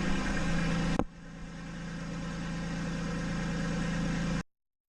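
A steady, engine-like machine hum. About a second in there is a sharp click and the hum drops, then it slowly builds back up before stopping abruptly near the end.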